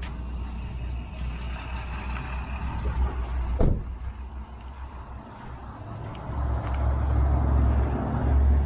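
Low vehicle rumble that grows louder in the second half, with one sharp knock about three and a half seconds in.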